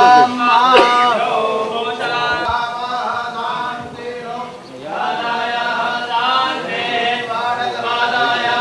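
Vedic Sanskrit mantras chanted by male voices in unison, with a short pause for breath about four and a half seconds in.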